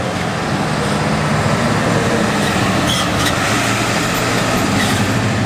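A large vehicle's engine running with a steady low drone amid street traffic noise.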